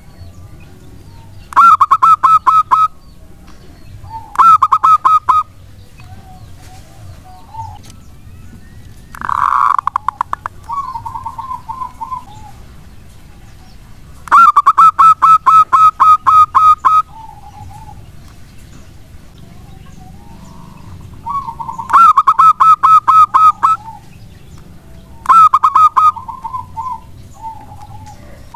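Zebra dove (perkutut) singing: about six loud bursts of rapid staccato cooing notes, each one to two and a half seconds long, several trailing off into softer, lower coos.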